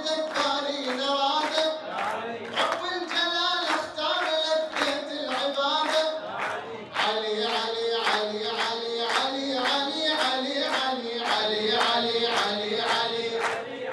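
A man chanting an Arabic praise song into a microphone, with voices chanting along and steady rhythmic hand-clapping in time, about two and a half claps a second.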